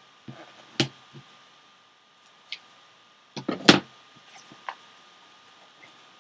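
Gloved hands handling a small cardboard box on a table: scattered knocks and taps, the loudest about three and a half seconds in.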